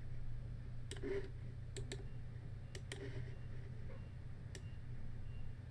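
Computer mouse buttons clicking about eight times at uneven intervals, some clicks in quick pairs, as keyframes are set on an animation timeline. A low steady hum runs underneath.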